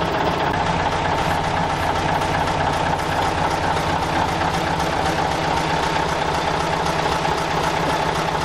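A 1979 Scania 141's V8 diesel engine idling steadily.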